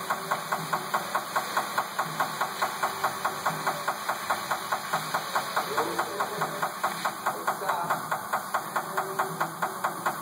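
Air machinery pulsing evenly, about four beats a second, as a tire on a tire changer is being inflated to seat its bead.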